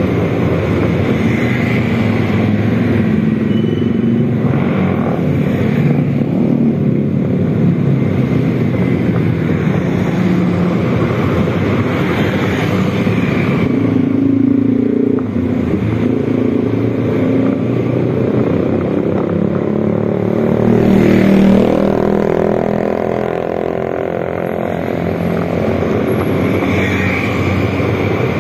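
Motorcycle engine running while riding in traffic, its pitch rising and falling with the throttle, with a louder surge a little past the two-thirds mark.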